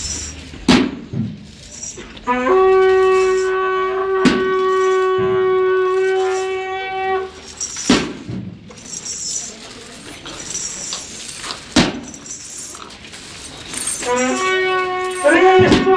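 A wind instrument sounds one long held note, then a wavering, bending phrase near the end. Sharp single knocks fall about every four seconds, like a slow beat.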